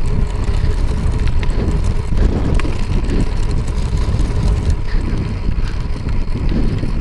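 Wind rumbling and buffeting on the microphone of a moving bicycle ride, low and steady, with a few faint light clicks.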